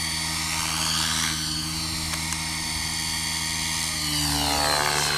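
Align T-Rex radio-controlled helicopter flying overhead: a steady whine of its rotors and drivetrain, its pitch dipping lower about four seconds in.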